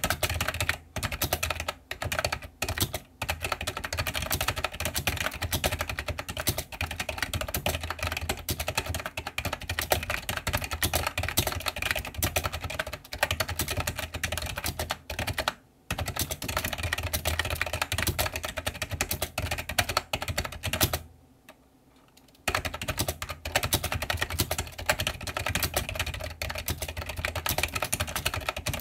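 Fast, continuous typing on an iMAGiC G Keyboard II plunger-switch keyboard: a dense clatter of keystrokes with a few short breaks and one pause of about a second and a half about two-thirds of the way in.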